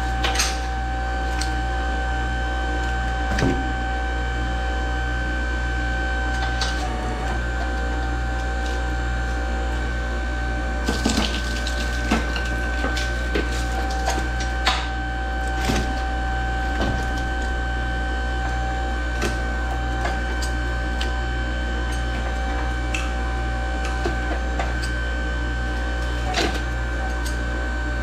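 Hydraulic pump running steadily with a low hum and a high whine while a hydraulic ram pulls copper windings out of an A/C compressor stator. Metal clanks and clicks from the chain and the stator come now and then, most of them from about eleven seconds in.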